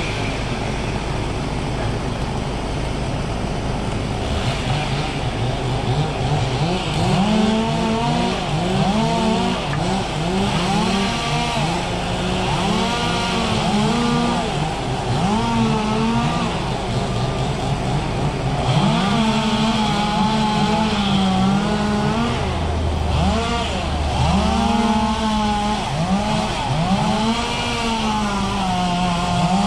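An engine revving up and down over and over, its pitch rising and falling in quick swells.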